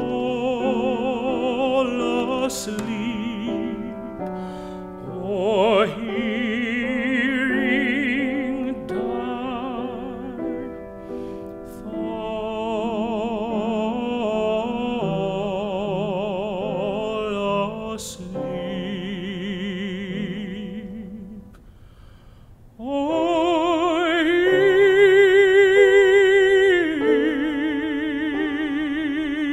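Operatic tenor singing an art song with wide vibrato over grand piano accompaniment. The sound nearly stops about three-quarters of the way through, then the voice comes back on a loud, long held note.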